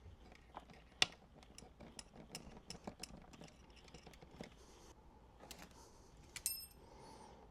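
Faint, scattered light clicks and taps from hands handling the ground wire and parts while wiring the boombox. There is a sharper click about a second in and a short high ring a little before the end.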